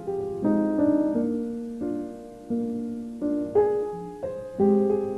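Solo piano playing a slow, gentle tune, each note or chord struck and left to ring and fade.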